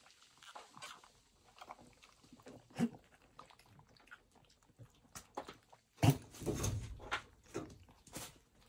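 A goat kid and hens drinking from a tub of water: irregular lapping, slurping and small splashes with beak taps, louder and fuller for about a second around six seconds in.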